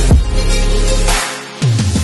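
Electronic background music with a heavy, steady bass line and kick drums. The bass cuts out briefly a little past a second in, then comes back with the kicks.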